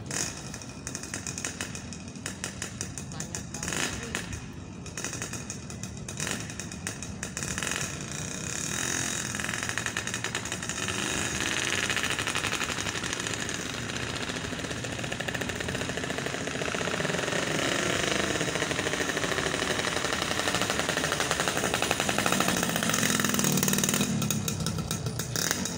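An engine running with a rapid, even pulsing beat. It grows louder through the middle, its pitch rising and falling slowly, and eases off near the end.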